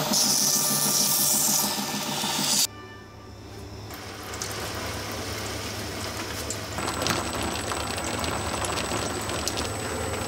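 A belt grinder runs with a steel knife blade held to the belt, making a loud grinding hiss that cuts off abruptly about two and a half seconds in. Then a water-cooled horizontal grinding wheel runs more quietly while a yanagiba blade is ground flat on it, with scattered light clicks and a thin steady high whine from about seven seconds in.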